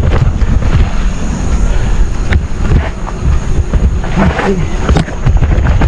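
Wind buffeting the microphone of a mountain bike rider descending a rough, rooty dirt trail at speed, with the bike's rattle and a couple of sharp knocks from hits on the trail.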